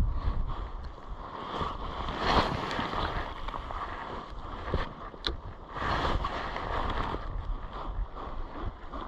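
Wind buffeting the microphone outdoors: an uneven rushing noise with a deep rumble that swells and fades in gusts, and one sharp click a little past halfway.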